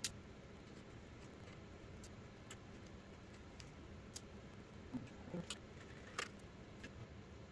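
Scattered sharp, light clicks and ticks from a precision screwdriver and small metal parts being handled on a graphics card during teardown. There are about half a dozen clicks at irregular intervals, the first at the very start, over a faint steady room hum.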